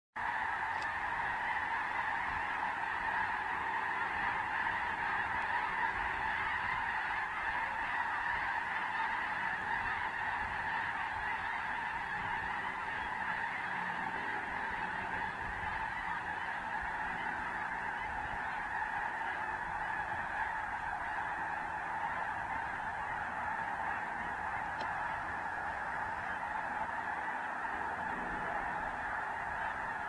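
A large flock of geese honking together in a dense, unbroken chorus.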